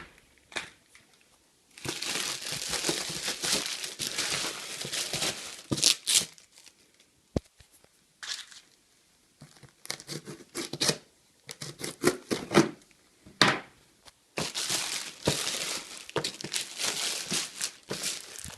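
A mail package being opened by hand: tearing and crinkling of packing material in two long stretches, with short handling clicks and rustles in between.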